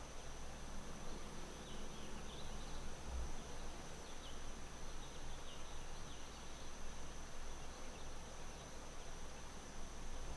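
Tropical outdoor ambience: a steady high-pitched insect drone, with a quick series of short bird chirps about two to four seconds in, over a low rumble.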